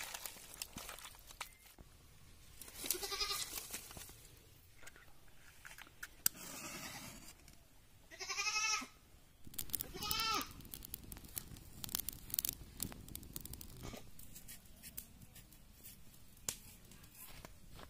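A goat bleating three times: one call a few seconds in, then two close together past the middle, the first of those wavering. Light clicks and rustles of handling come in between.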